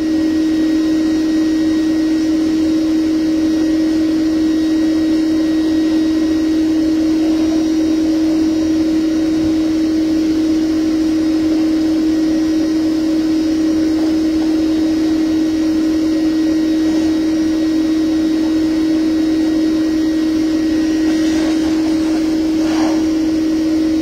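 Vacuum-type bee vac running with a steady hum and rush of air as its hose sucks live honeybees off exposed honeycomb.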